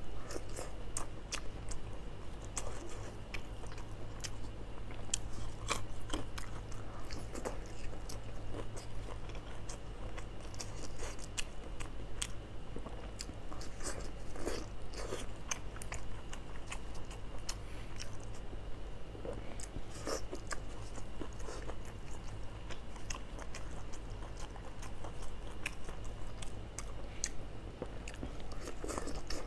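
Close-up chewing and biting of lamb intestine stuffed with meat: a steady run of small clicks and crunches of the mouth working through the casing. A steady low hum lies underneath.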